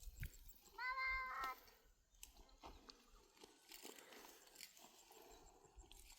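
A single short animal call about a second in, held at one steady pitch for under a second, followed by faint clicks and rustling.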